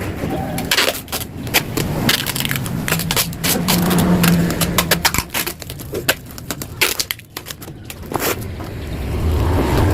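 Yamaha RX-King's two-stroke single-cylinder engine running through its reworked, hollowed-out exhaust, with an irregular crackle of sharp pops over a low rumble.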